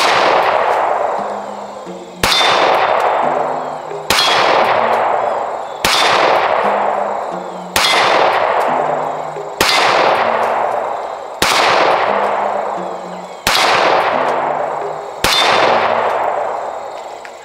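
Springfield Hellcat 9mm micro pistol fired in slow, steady fire: nine shots about two seconds apart, each followed by a long fading ring.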